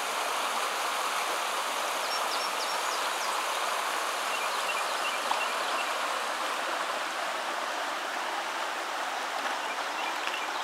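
Shallow creek rushing and rippling over rocks, a steady even rush of water, with a few faint high chirps now and then.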